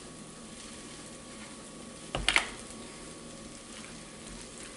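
Utensils working a glass mixing bowl as mayonnaise is spooned into a salad and stirred: a faint steady hiss, with two sharp clicks of the spoon against the bowl a little over two seconds in.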